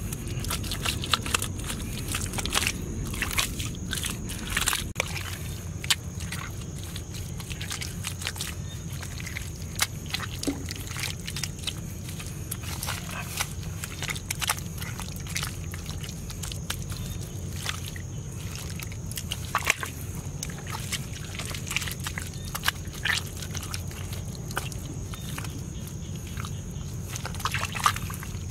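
Bare hands slapping and smoothing wet, muddy soil, making irregular wet squelches and pats.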